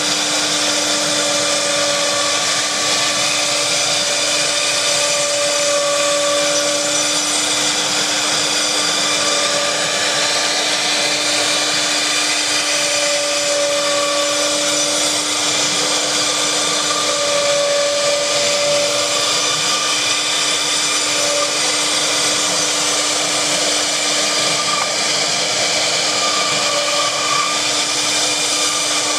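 Trustercnc TR-1325 CNC router cutting foam: the spindle runs with a steady whine over loud hiss, and a higher whine comes and goes as the machine moves.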